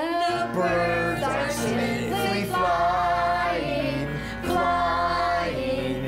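Music for a children's song about birds: a melody with voices singing over steady low bass notes.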